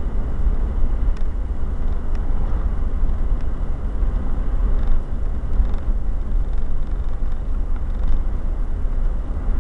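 Inside a car moving at highway speed: a steady low rumble of tyres, engine and wind.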